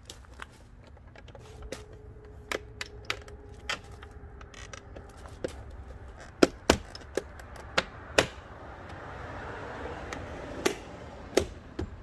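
Plastic trim parts and push clips clicking and tapping irregularly as they are slid and pressed into place, with a few louder snaps around the middle and a brief rustle near the end.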